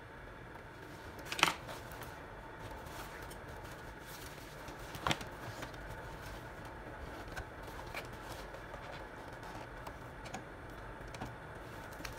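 Handling sounds as a leather vest is trimmed with small scissors and shifted into place under a sewing machine: scattered sharp clicks and snips, the loudest about a second and a half in and another about five seconds in, over a quiet background. The sewing machine is not running.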